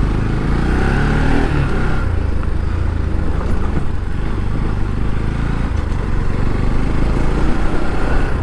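Motorcycle engine running as it is ridden along, with a steady low rumble; the engine note rises briefly about a second in.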